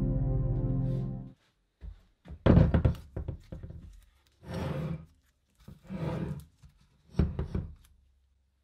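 Background music stops about a second in. Then a dirty old small engine block is handled and set down on a carpeted bench: about five dull thunks and clunks, the loudest soon after the music ends.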